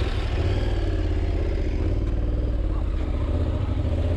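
Adventure motorcycle engine running steadily at low revs, a deep even rumble with a slightly wavering pitch.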